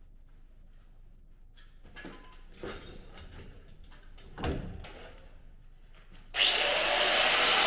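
A few light knocks and handling sounds from tools and parts, then near the end a power tool starts up abruptly and runs loud and steady.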